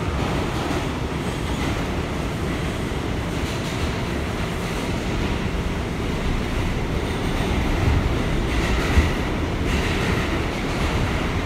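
New York City subway car running along the track, heard from inside the car: a steady rumble of wheels on rails, with two brief knocks about eight and nine seconds in.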